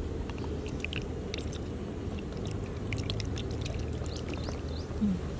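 Wooden spoon stirring thin cake batter in a glass bowl, a wet sloshing, over a steady low outdoor rumble with scattered short high chirps.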